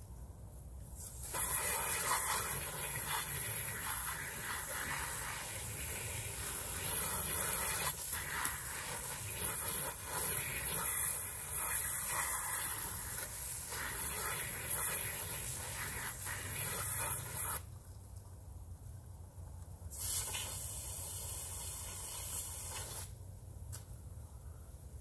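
Garden hose spray nozzle hissing as it sprays water over a yurt window being washed. The spray starts about a second in and runs steadily until about two-thirds through, stops, then comes back in a short burst of about three seconds near the end.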